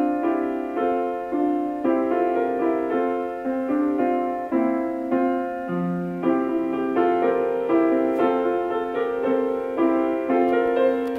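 Boston grand piano played in a slow, legato piece, notes held and overlapping with about two new notes or chords a second.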